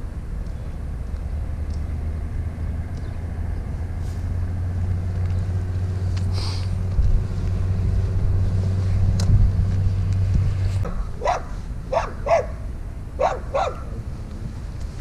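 A steady low hum runs until about eleven seconds in, then cuts off suddenly. A dog then barks about six times in quick succession.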